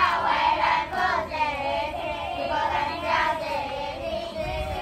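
A group of children singing together in unison.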